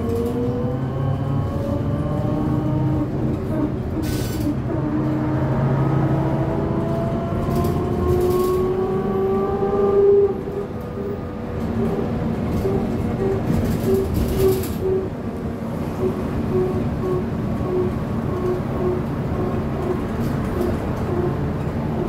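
VMZ-5298.01 Avangard trolleybus heard from inside the cabin while under way: the electric traction drive whines in several tones that rise together as it accelerates, levelling off about ten seconds in. After that a tone pulses about one and a half times a second over low road rumble, with a few short rattles.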